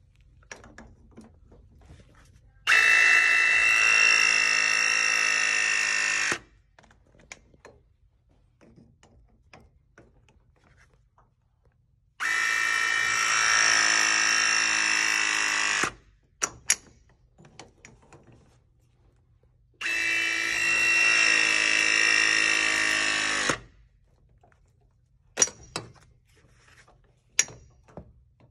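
RIDGID battery-powered ProPress tool crimping copper press fittings at a ball valve, three presses in all. Each press is a steady motor whine of about four seconds that cuts off sharply. Short sharp clicks fall between the presses.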